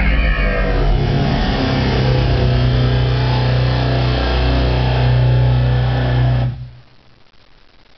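The closing sound of a DTS digital-sound logo trailer played loud through cinema speakers: a deep sustained bass drone with a dense rushing layer above it. It cuts off sharply about six and a half seconds in, leaving only faint hiss.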